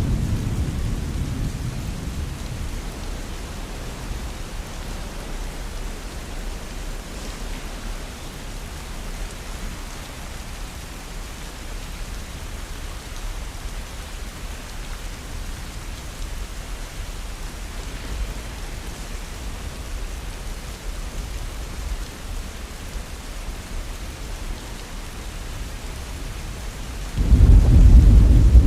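Steady rain falling, with thunder. A low rumble dies away over the first few seconds, and a loud thunderclap breaks in suddenly near the end.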